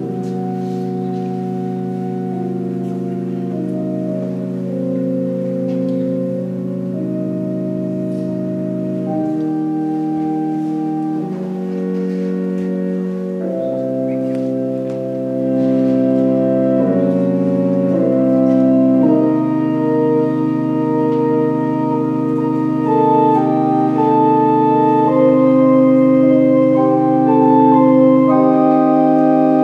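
Organ playing slow, sustained chords that change every few seconds, growing louder past the middle as a higher melody line comes in over the held chords.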